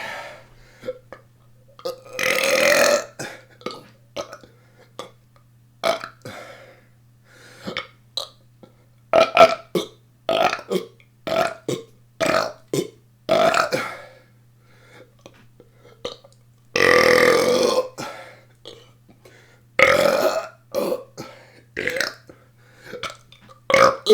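A person burping over and over on purpose, bringing up swallowed air: a long run of short belches, with two longer drawn-out ones, one about two seconds in and another about two-thirds of the way through.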